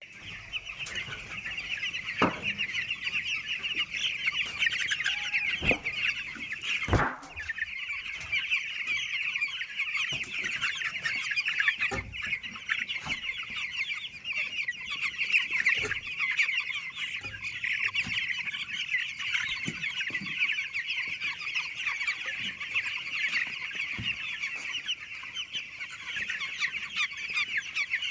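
A flock of chickens in a poultry house calling together, a dense unbroken chatter of short high calls, with a few dull knocks here and there.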